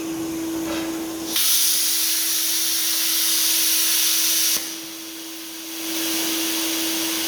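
Lincoln Tomahawk 1000 plasma torch blowing compressed air, a loud hiss that starts suddenly about a second and a half in and cuts off about three seconds later, then a softer hiss returns near the end, over the machine's steady hum. The torch is firing without cutting because the ground clamp is not attached.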